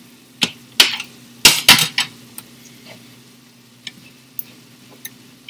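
Knife and cooking utensil clicking and knocking against a plate and a cast iron skillet as cheese is cut into cubes and ground turkey is stirred. The loudest knocks bunch together in the first two seconds, followed by a few light taps.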